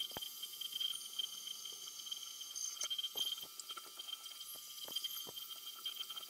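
Milling machine drilling into a metal block with a twist drill: a steady high whine from the running spindle, with irregular small clicks and crackles as the drill cuts and chips break off.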